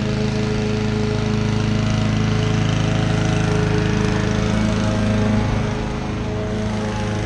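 Honda 216D self-propelled lawn mower's four-stroke engine running steadily under load as the mower is pushed across grass, easing a little quieter near the end as it moves away.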